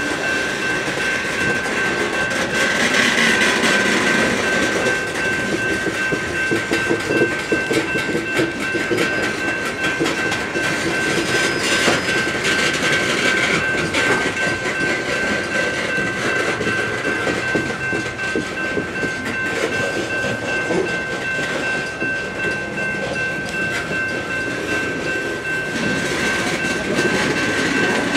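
Loaded BNSF coal train rolling past, its wheels clattering and clicking over the rail joints, with a grade-crossing bell ringing steadily.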